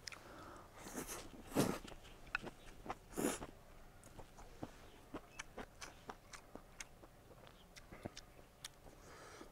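A person eating stir-fried rice noodles: two loud slurps in the first few seconds, then a run of short wet mouth clicks while chewing.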